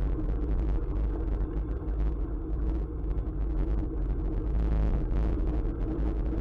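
Wind rumbling steadily over the microphone of a camera carried on a bicycle at speed, mixed with tyre and road noise.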